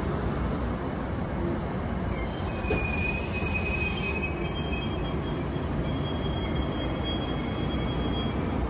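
VRE bilevel commuter cars rolling slowly along the platform as the train pulls out, a steady low rumble. Faint high wheel squeals come in around three seconds in and again from about four seconds to near the end.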